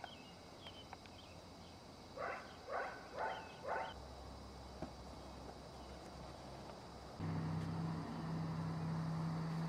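A dog barks four times in quick succession, about half a second apart. About seven seconds in, a steady low hum starts abruptly and runs on.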